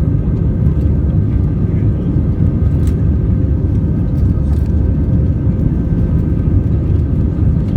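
Airbus A320-200 jet engines running with a steady, loud roar: an even low rumble with a few faint steady tones above it.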